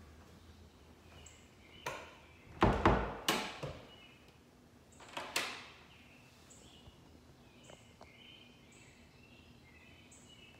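A wooden kitchen cabinet door knocking and thudding shut: a cluster of sharp knocks about two seconds in, then two more a few seconds later. Faint short high chirps repeat in the background.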